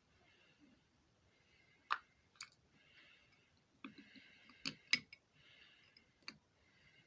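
A few sharp clicks and taps of small hard objects being handled, loudest in a cluster about four to five seconds in.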